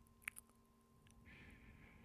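Close-miked mouth sounds: a sharp, wet lip click, like a kiss, about a quarter of a second in, then a soft, steady breath from just over a second in.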